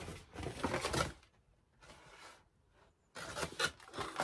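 Rustling and handling of gift packaging in two spells, the first about a second long and the second starting about three seconds in, with a quiet gap between them.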